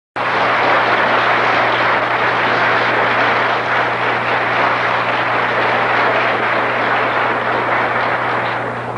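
Audience applausing in an old, lo-fi recording, dying down near the end, over a steady low electrical hum.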